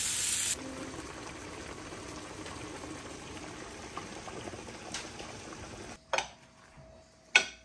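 Chicken breasts sizzling in a grill pan for the first half second, then the steady bubbling hiss of a pot of water at a rolling boil for linguine and a simmering sauce pan. Near the end come two sharp clacks of a utensil against a plate, a little over a second apart, the second louder.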